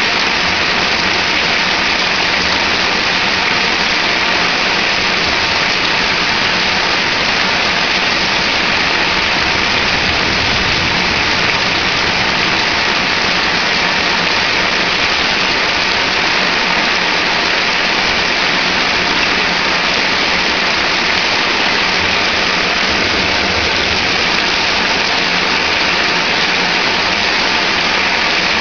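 Heavy thunderstorm rain pouring down, a loud, steady, unbroken rush.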